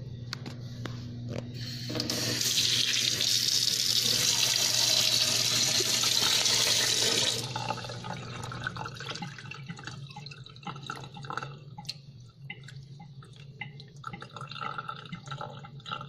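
Kitchen tap running into a bowl of glutinous rice in a steel sink for about five seconds and then shutting off, while the rice is washed before steaming. After that, rinse water trickles and drips as it is poured off the rice past a flat hand. A steady low hum sits underneath.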